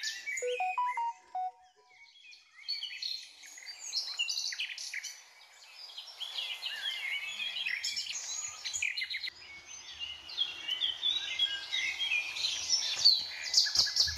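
Many forest birds singing and chirping together, a dense chorus of quick high chirps and whistles, with a short run of rising whistled notes about half a second in. Footsteps on dry leaves join near the end.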